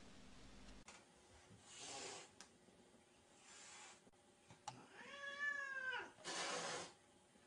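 Kitten hissing defensively at a dog leaning over it: two short hisses, then a drawn-out yowl about five seconds in that rises and falls in pitch, then a louder hiss.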